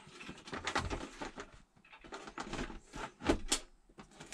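Portable butane gas stove being set down into its hard plastic carry case: a series of light clicks and knocks of the stove against the plastic, with two sharper knocks a little after three seconds in.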